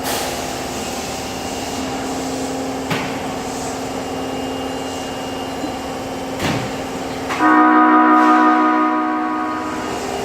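Tanimachi Line subway train's horn sounding once, about seven seconds in: a loud chord of steady tones held for about two seconds, then fading. It has the odd, bell-like sound that marks this particular car's horn as abnormal. Before it, the train's steady hum with a couple of knocks.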